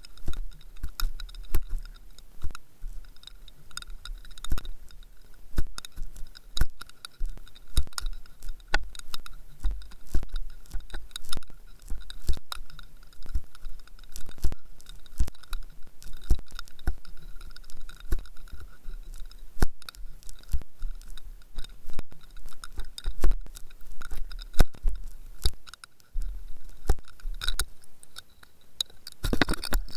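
Underwater camera and fishing rig hanging deep on the line, knocking and clicking: irregular sharp clicks, several a second, over a low rumble and a faint steady whine.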